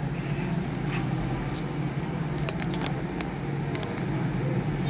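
Steady low electrical hum with scattered light clicks and taps of small tools on a phone's circuit board.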